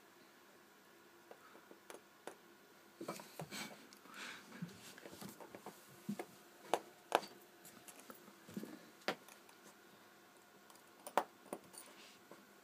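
Scattered small clicks and short scrapes of a tool and fingers working a mobile phone's plastic casing open.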